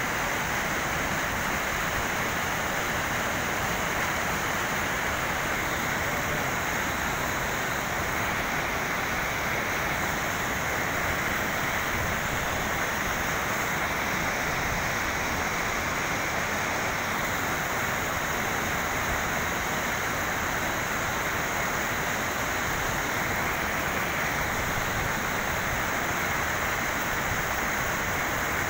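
River water rushing over rocks and a concrete block in a strong current: a steady, even rush that holds throughout.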